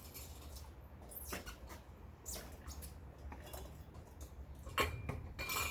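Scattered light scrapes, rustles and clicks of ceiling fan parts being handled while the fan is mounted, the loudest near the end, over a steady low hum.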